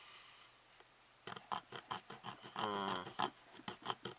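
Hobby knife blade scraping and cutting into a soft vinyl figure part, made soft with warm water: a run of short, irregular scratching strokes starting about a second in, with a brief pitched sound partway through.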